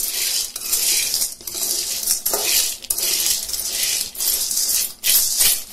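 Dried red kidney beans stirred with a metal spatula in a dry metal wok, the hard beans rattling and scraping against the pan in repeated sweeps, about one a second. The beans are being lightly dry-roasted to warm them.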